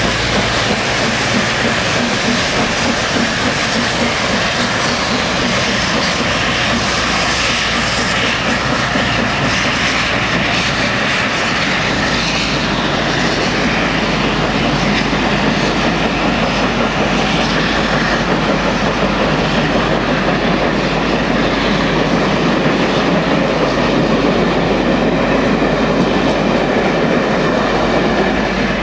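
Double-headed steam train, an A1 Pacific and a GWR King class 4-6-0, departing with its coaches. Loud, steady running noise of the working locomotives and the coach wheels rolling and clattering over the rail joints as the train passes.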